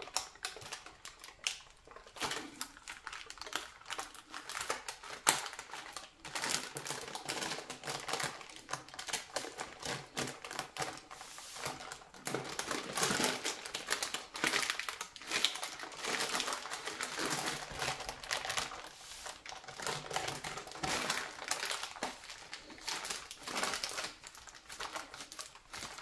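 Baking parchment crinkling and rustling under gloved hands as a minced-meat roulade is rolled up and pressed tight inside it, in a run of irregular crackles and clicks.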